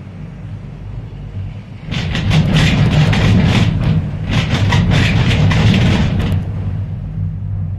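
Maokong Gondola cabin travelling along its cable: a steady low hum, with a loud stretch of rapid clattering and rumbling from about two seconds in until just past six seconds.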